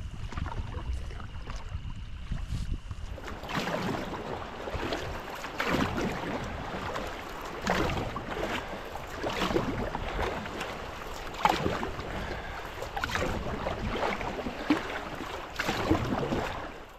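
Canoe paddle strokes on flat water: splashing and dripping that swell about every two seconds. Wind rumbles on the microphone for the first few seconds.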